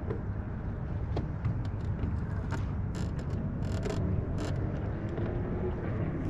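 Steady low rumble of wind and water around a small fishing boat, with a few light clicks and taps. A faint hum comes in about four seconds in.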